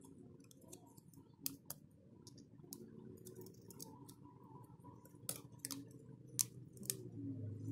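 Irregular small clicks and ticks of metal tweezers against the metal midframe of a Xiaomi Redmi 4A display assembly, as a flex cable is pried up and lifted off it.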